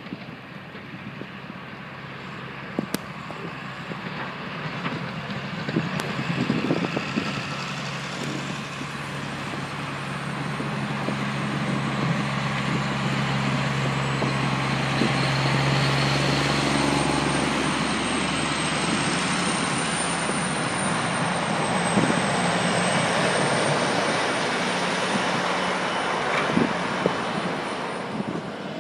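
Road traffic noise, with a heavy vehicle's engine droning low while the road noise swells over the middle and stays up, and a thin high whine through the second half.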